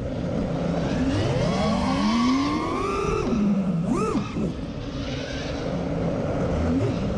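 FPV racing quadcopter's electric motors and propellers whining, the pitch gliding up and down as the throttle is worked, with a quick rise and fall about four seconds in.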